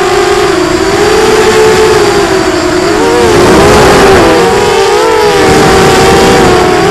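Onboard sound of a Quadrysteria Mini Mamba V2 FPV racing quadcopter: its brushless motors and propellers whining at several close pitches that rise and fall against each other as the throttle changes, busiest about three seconds in as it banks through turns.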